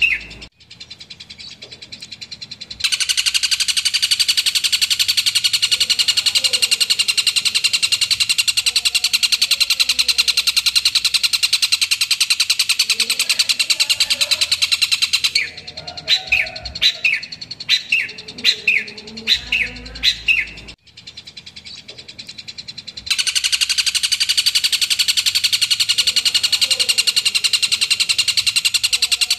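Long-tailed shrike (cendet) singing loudly: long stretches of a very fast, unbroken high chatter, interrupted in the middle by several seconds of separate sharp chirps; the sections start and stop abruptly.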